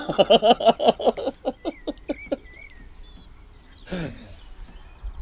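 A person laughing: a quick run of ha-ha pulses that dies away after about two seconds, then one short voiced sound near the end.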